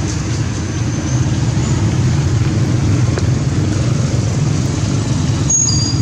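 Steady low rumble of a vehicle engine running, with a brief high two-note chirp near the end.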